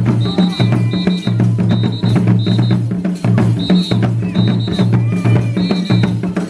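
Drum music with a steady beat: repeated drum hits over low sustained tones, with short high-pitched notes recurring over the rhythm.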